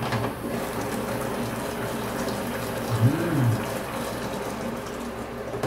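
Fish paksiw simmering in vinegar and water in a pan, a steady bubbling hiss, as the pan's glass lid is lifted off. A brief hum that rises and falls in pitch about three seconds in.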